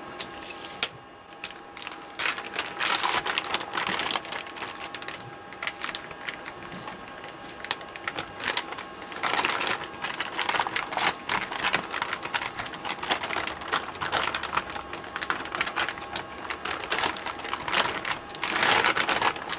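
Heavy plastic vacuum storage bag crinkling and rustling as it is handled, with irregular crackles coming in uneven bouts.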